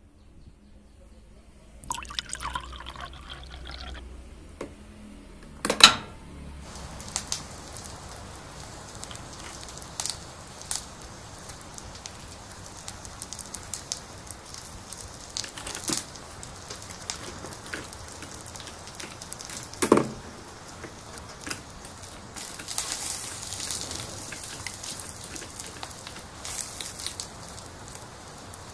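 Water poured from a small cup into a miniature pot of cut vegetables, then the cup set down with a sharp knock. Afterwards the pot simmers with a steady light hiss and scattered small pops.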